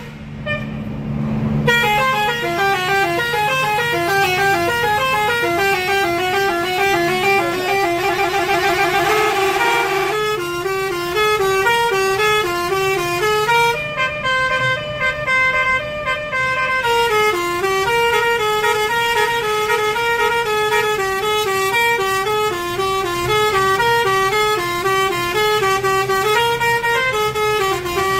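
Bus's basuri melodic air horn playing a quick tune of stepping notes without a break, with one long held chord about a third of the way through, heard from inside the bus over the low hum of its engine.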